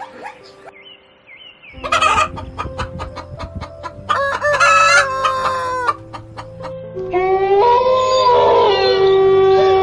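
Chickens clucking and a rooster crowing, over background music. Short clucks come about two seconds in, followed by crowing calls from about four seconds in, the last one long and running on.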